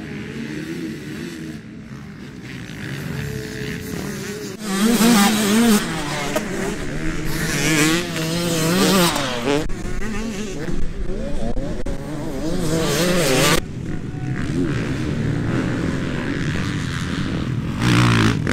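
Motocross bike engines revving as riders come through a dirt corner, the pitch rising and falling as the throttle opens and closes. A closer, louder bike runs from about five seconds in to about thirteen and a half seconds in, then drops away sharply; another swells up near the end.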